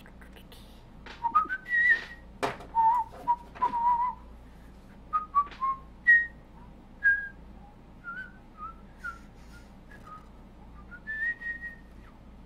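A person whistling idly: short, wandering notes in irregular bursts, with a longer held note near the end.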